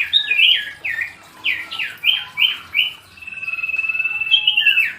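Common iora (cipoh) singing a varied whistled song: a run of short, falling clear notes, then a long steady whistle held for over a second about three seconds in, followed by quick falling notes near the end.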